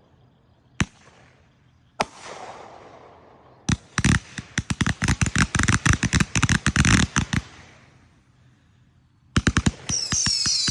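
Sunwing Surfs Up consumer firework cake firing as a grand finale. Three single reports come a second or two apart, then a rapid run of crackling shots for a few seconds. After a short lull a fresh volley starts near the end, with a high whistle falling in pitch.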